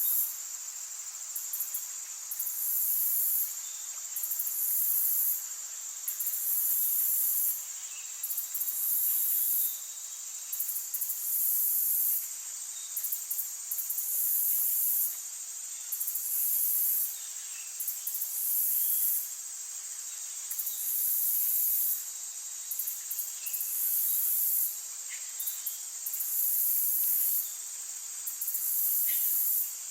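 Forest insects calling in loud, high-pitched pulses about a second long, repeating roughly every two seconds over a steady high drone. A few faint short chirps sound now and then beneath them.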